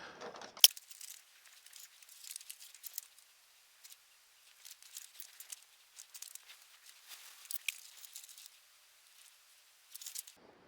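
Soldering iron working solder joints on an old circuit board: faint, irregular crackling and ticking in scattered bursts, the sizzle of rosin flux as the solder melts. A single sharp click comes just over half a second in.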